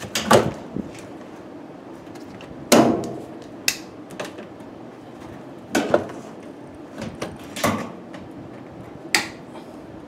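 Sharp clunks and clatter of a Whirlpool Cabrio top-loading washer's plastic tub parts and suspension-rod mount being handled with hands and pliers during a suspension rod replacement. There are about five separate knocks, the loudest about three seconds in.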